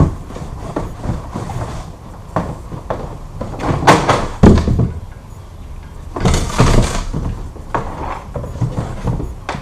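A boxed 25-gallon sprayer unit being pulled out of its cardboard packaging: scraping, sliding and knocking of cardboard and plastic, with two louder scrapes about four and six and a half seconds in.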